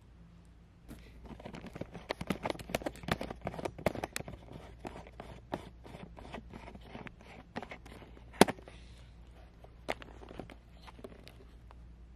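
Clothes and bags being handled while packing a suitcase: a quick run of rustles and clicks, busiest in the first few seconds, with one sharp click a little past eight seconds in.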